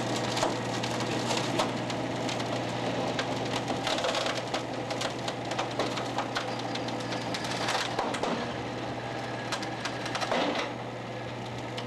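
A rescue litter creaking and cracking under a destructive pull test. Many sharp cracks and snaps sound as its bed deforms, over the steady hum of the motor-driven loading rig. The sound drops a little near the end.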